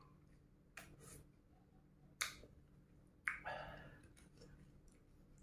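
Mouth sounds of eating an ice lolly: three sharp smacks, the last followed by a short slurp.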